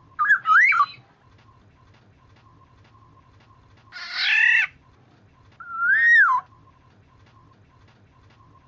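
Black-naped oriole (kepudang) calling: a short fluty whistled phrase at the start, a harsh nasal call about four seconds in, then a single whistle that rises and falls.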